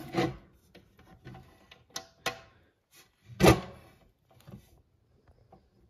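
Knocks and clacks of a solar inverter's casing and front cover being handled and swung open, a handful of separate knocks with the loudest about three and a half seconds in.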